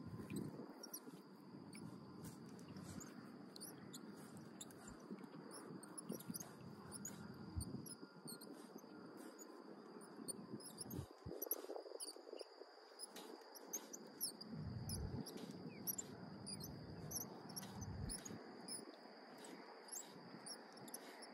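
Faint salt-marsh ambience: a steady high-pitched insect drone with many scattered high ticks over it, and an uneven low rumble underneath.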